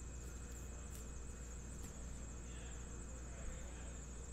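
Quiet room tone with a steady low hum and a steady high-pitched whine, and a few faint light ticks of trading cards being flipped through by hand.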